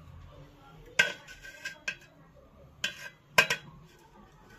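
Steel serving spoon clinking against a steel plate and an aluminium cooking pot as curry is dished out: about four sharp metallic clinks, the loudest about a second in and near three and a half seconds in.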